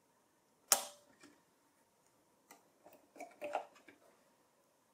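SO-DIMM memory modules snapping into the latches of a mini PC's memory slots: one sharp click about a second in, then a cluster of smaller clicks and taps around three seconds in.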